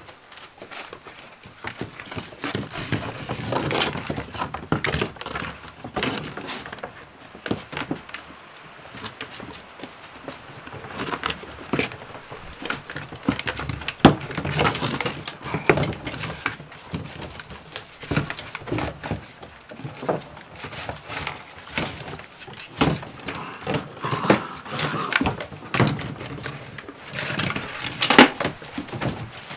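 Gordon Setter puppies playing on wooden floorboards: claws scrabbling and a plant pot knocking and scraping on the boards as they tug it about by its rope. The knocks come irregularly, with the sharpest about halfway through and near the end.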